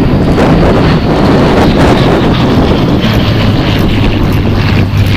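Hawker Hurricane's Rolls-Royce Merlin engine in flight: a steady engine hum that grows stronger about three seconds in, under heavy wind noise on the microphone.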